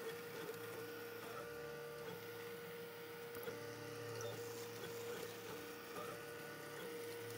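Ultimaker 3D printer running a print: a steady whine from its stepper motors over a low hum, with short extra tones coming and going as the axes move.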